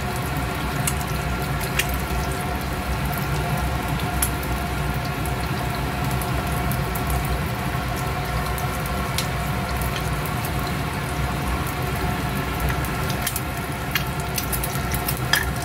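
Egg frying in hot oil in a small nonstick pan: a steady sizzle with scattered crackles and pops, and a steady hum underneath. Near the end a spatula scrapes under the egg, with a cluster of clicks.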